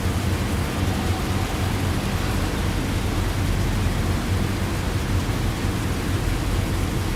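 Steady heavy rain: an even, unbroken hiss with a constant low rumble underneath.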